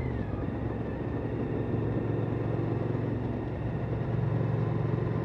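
Motorcycle engine running at a steady cruise, with road and wind noise. The engine note dips slightly right at the start, then holds steady.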